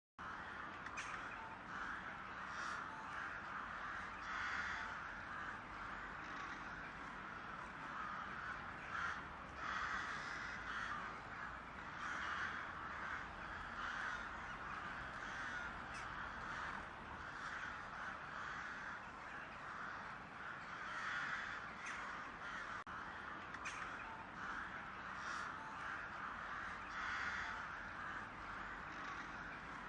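Crows cawing over and over, harsh calls following each other every second or so.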